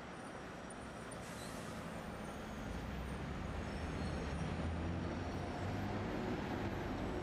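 Street traffic noise with the low rumble of a heavy vehicle's engine, growing louder about two to three seconds in and then holding steady.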